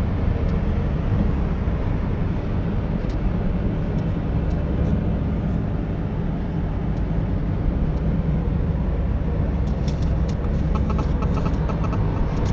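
Car in motion heard from inside the cabin: a steady low road and engine rumble. A few light clicks come in near the end.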